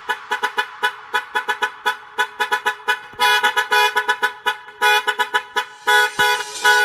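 Truck air-horn sample chopped into short rhythmic blasts, about four or five a second, in a budots dance remix with the bass dropped out. A few longer held horn blasts come in the second half.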